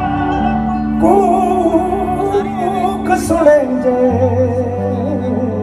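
Live Punjabi Sufi song through a PA: a male singer sings a long, wavering, ornamented line over held notes from the band. The voice comes in about a second in, and a low held note joins about four seconds in.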